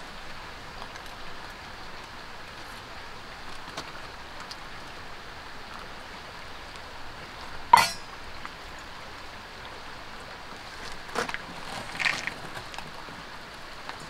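Steady rain falling, with one sharp clink just past halfway and two softer knocks a few seconds later.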